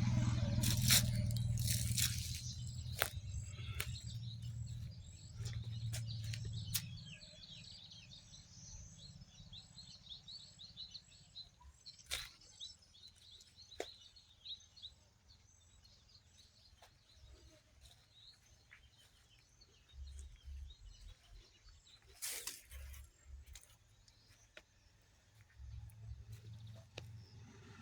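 Outdoor ambience with birds chirping faintly and quickly, over a low rumble that fades out about seven seconds in, with scattered sharp clicks.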